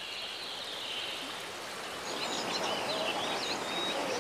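Steady rush of a mountain forest stream over rocks, with a bird twittering in quick high chirps for a second or two in the second half.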